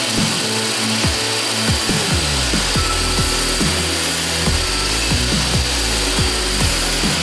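Homemade 2x48-inch belt grinder, driven by a 1.5 hp electric mower motor, grinding a steel plate held flat against the belt: a steady hiss of abrasive on steel. Background music with a steady beat plays over it.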